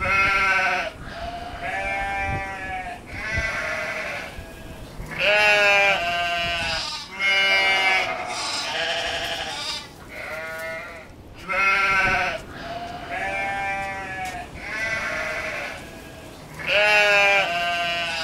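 Sheep bleating again and again, a wavering bleat roughly every second, some higher and some lower in pitch.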